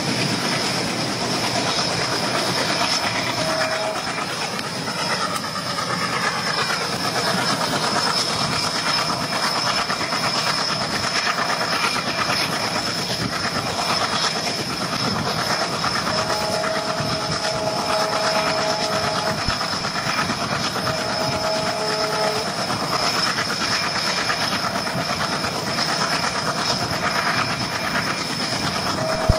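Passenger train running, heard on board: a steady rumble and hiss of wheels on the track. A horn sounds a couple of times past the middle, in long held notes.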